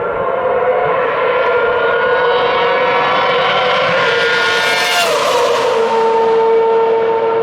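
Ferrari F2008 Formula 1 car's naturally aspirated 2.4-litre V8 at high revs, passing by: the high engine note drops in pitch about five seconds in as it goes past, then holds a steady lower note.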